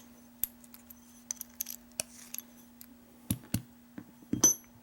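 Small metal clicks and taps as the back cap is worked off a Schlage deadbolt lock cylinder, with one sharper ringing metal clink near the end. A faint steady hum runs underneath.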